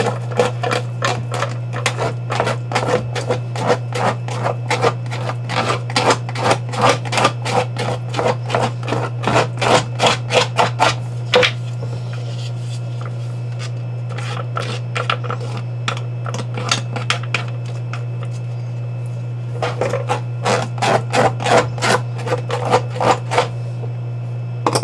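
Fast, even scraping strokes, about four a second, as built-up algae is cleaned off an algae scrubber's screen. They pause for several seconds in the middle, then start again. A steady low hum runs underneath.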